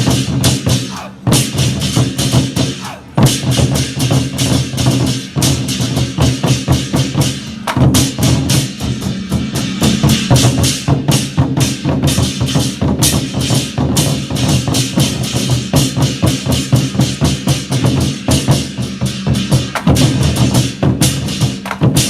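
Chinese war drums (zhangu) being beaten by a troupe in a fast, driving rhythm of dense, continuous strikes.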